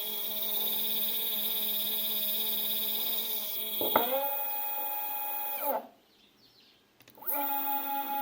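Two stepper motors wired in parallel to one driver, running with a loud whine made of several steady tones. The pitch rises as they speed up, clicks and shifts about four seconds in, then falls as they slow and stop near six seconds; they start up again about a second later. The loud whine is the abnormal noise the owner is chasing, with the two motors misbehaving at 4 A peak.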